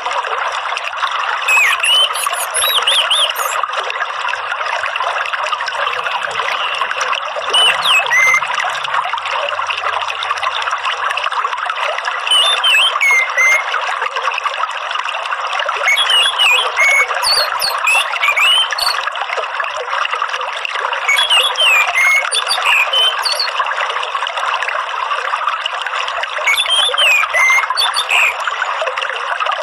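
Steady running, trickling water, with short whistled phrases of orange-headed thrush song laid over it about six times, each lasting a second or two.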